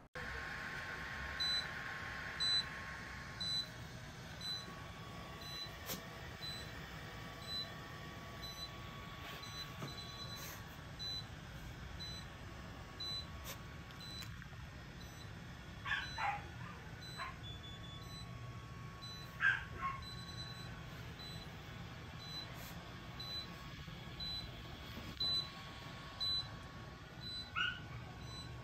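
A Class 4 therapy laser gives off evenly repeating faint beeps while it runs. A Shih Tzu lets out a few short whimpers partway through and near the end.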